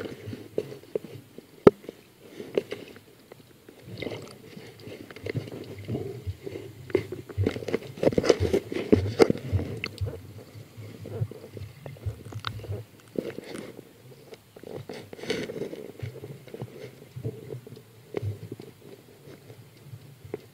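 Underwater recording of bubbling and gurgling that swells in bursts every few seconds, with crackle and scattered sharp clicks.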